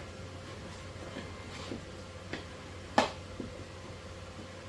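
3D-printed plastic table parts clicking and knocking as they are pushed together by hand: a few light clicks, then one sharp knock about three seconds in.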